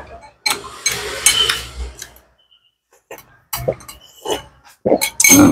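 Eating sounds: a metal spoon clinking and scraping in a glass bowl, with chewing, and a run of sharp clinks about three to four seconds in. The loudest sound, near the end, is slurping from the glass bowl tipped up to the mouth.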